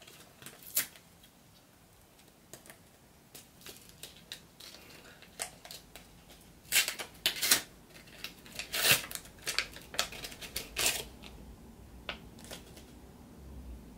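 Paper-and-foil sachet of an estrogen patch being torn open and handled: scattered crinkles and short rips, loudest and most frequent about seven to nine seconds in and again around eleven seconds.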